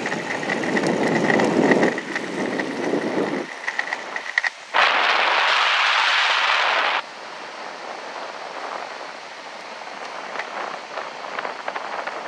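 An electric skateboard riding along asphalt: wheels rolling, with wind on the microphone. A steady high-pitched whine sounds over a low rumble for the first few seconds. About five seconds in, a loud rush of hiss starts and cuts off abruptly two seconds later.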